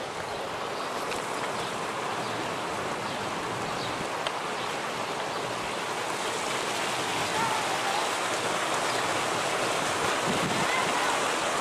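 Running water, a steady rush that grows gradually louder.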